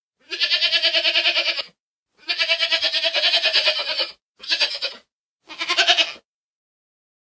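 Goat bleating four times: two long, quavering bleats of one and a half to two seconds, then two short ones.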